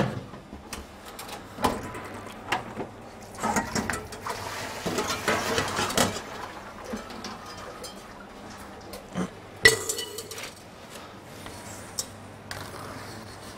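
Kitchen knife and stainless steel cake frame clinking, knocking and scraping on a steel worktop. Scattered metal clinks, with a denser stretch of scraping in the middle, a sharp knock right at the start and another about ten seconds in.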